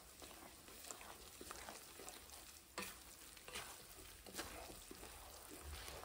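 Spatula stirring and scraping through a thick paste of roasted gram flour and ghee in a steel kadai, faint, with a few sharper scrapes against the pan. The mixture is still hot enough to roast the spices being mixed in.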